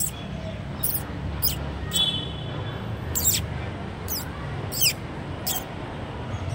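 Short, high-pitched chirps or squeaks repeating roughly once a second, some sliding down in pitch, over a steady low hum.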